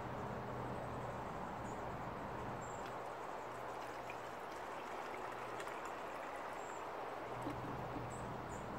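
Sugar water pouring from a glass jar into a plastic hummingbird feeder bottle, a steady trickle.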